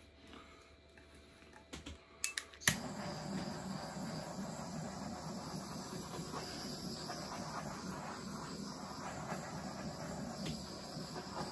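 Handheld butane torch: a few sharp clicks as it is lit about two seconds in, then the steady hissing rush of its flame, which cuts off with a click at the very end.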